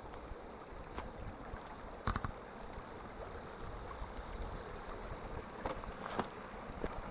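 Shallow stream running over an ice-edged rocky bed, a steady rush of water, with a few sharp clicks about two seconds in and again around six seconds in.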